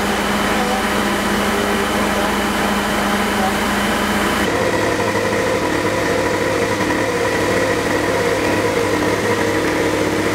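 A fire truck's engine and pump running steadily. About four and a half seconds in, this gives way to a Tohatsu portable fire pump's engine running steadily, pumping water into a hose.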